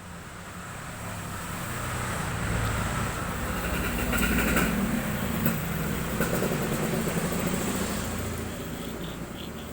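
A motor vehicle passing by: a low engine rumble that grows louder, peaks about midway, then fades away.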